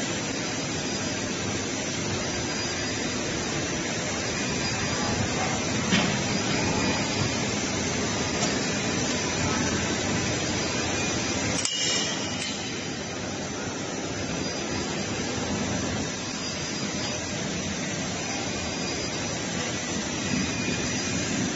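Steady, noisy running of factory machinery in a heat-treatment workshop, with a brief break about halfway through.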